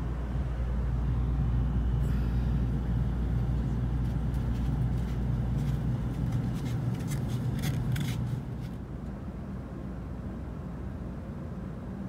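Steady low rumble inside a halted Shinkansen passenger car, with a run of clicks and rustles from about two seconds in. The rumble and the clicks fall away after about eight and a half seconds, leaving a quieter hum.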